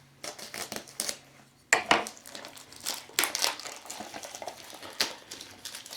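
Packaging for a Funko Mystery Mini blind box being opened by hand: irregular crinkling and rustling of cardboard and plastic, with sharp snaps and taps. The loudest snaps come about two and three seconds in.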